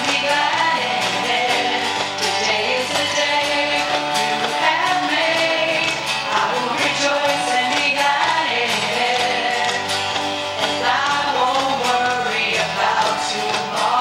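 Live worship band playing a song with female singing, acoustic guitar, keyboard and a steady beat from a cajon.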